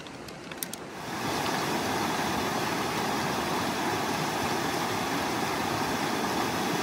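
Fast mountain stream water rushing steadily over rocks, coming up loud about a second in after a couple of light clicks.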